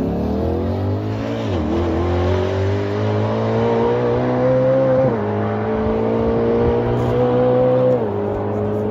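Bugatti Tourbillon's naturally aspirated V16 accelerating hard through the gears: the engine note climbs steadily and drops sharply at each upshift, three shifts in all, about a second and a half, five and eight seconds in.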